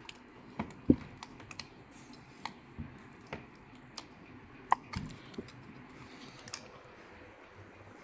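Irregular light clicks and taps from hands handling a laptop motherboard, about a dozen scattered through, the sharpest about a second in and again just before five seconds.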